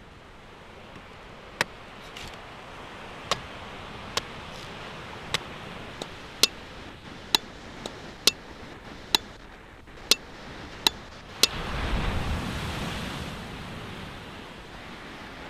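Meat cleaver chopping into a green coconut's husk, a sharp knock roughly once a second, over a steady wash of surf that swells briefly late on.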